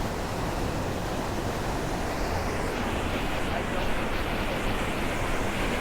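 Steady rushing roar of a waterfall pouring over rock into its pool.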